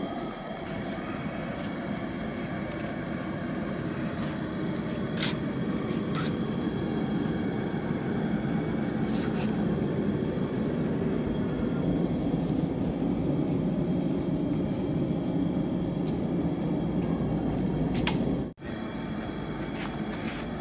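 Steady low roar of gas burners heating a large steel hotpot tray full of Coca-Cola toward the boil, with a few faint clicks.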